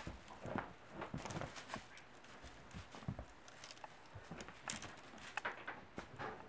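Kittens play-wrestling on an upholstered couch: irregular soft thumps, scuffs and scratches of paws and bodies landing on and pushing against the fabric.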